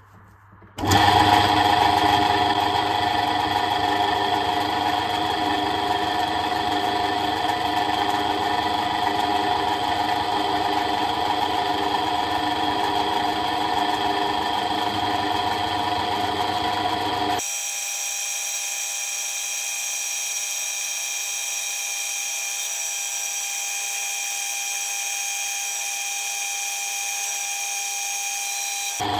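Myford ML7 metal lathe running: its electric motor and belt-driven spindle start about a second in and settle into a steady hum with a constant whine. About two-thirds of the way through, the sound abruptly turns thinner and higher, losing its low end, and stays steady.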